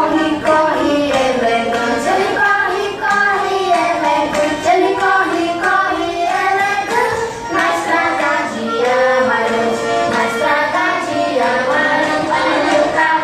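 Music with singing, a song sung in a high, child-like voice over instrumental backing, playing continuously at a steady level.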